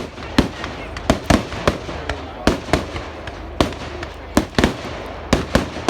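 Fireworks going off: an irregular run of sharp bangs, about a dozen in six seconds, with crackling between them.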